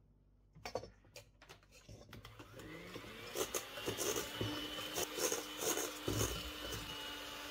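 A few light clicks of a metal spoon on the glass sugar jar, then a handheld electric mixer starts up about two seconds in, its motor whine rising and settling into a steady run as the wire beaters whip egg white and sugar to a stiff meringue in a stainless steel bowl, knocking against the bowl now and then.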